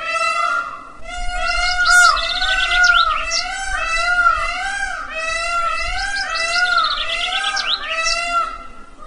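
Bird calls: a continuous series of arching, pitched calls at about two a second, with quick chirping trills about two seconds in and again near seven seconds.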